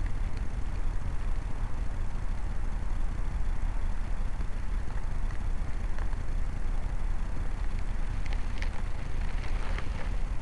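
Wind buffeting the built-in microphone of a MiniDVC Molly MD80 mini camera hanging from a balloon: a steady, deep rumbling rush, with a few faint high ticks near the end.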